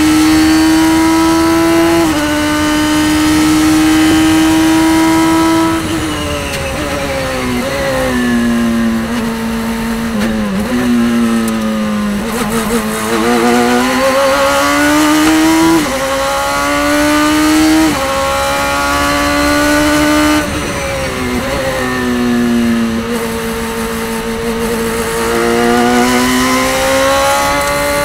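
Onboard sound of a Radical race car's engine at speed on track. It holds a high note, then falls in steps as the driver brakes and downshifts, then climbs again under acceleration with short dips at each upshift. The cycle repeats, falling again about two-thirds through and rising near the end.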